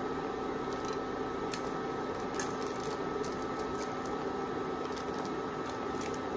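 A wok of crabs and vegetables cooking on an induction hob: a steady hiss and hum with scattered small pops and crackles.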